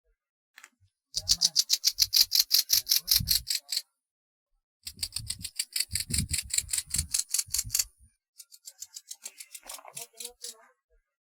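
Grasshopper stridulating in three bouts of rapid, evenly spaced high-pitched pulses, about seven or eight a second, each bout lasting a few seconds. The third bout is fainter, and low thuds sound under the first two.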